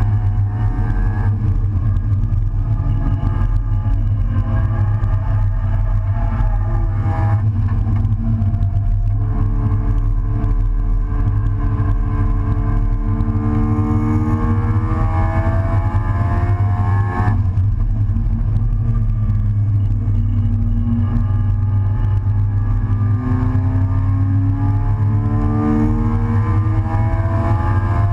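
Race car engine heard from inside the stripped, open cockpit at racing speed, its pitch climbing in long sweeps as it pulls through the gears, with sharp breaks near 7 and 17 seconds. A heavy steady low rumble runs underneath.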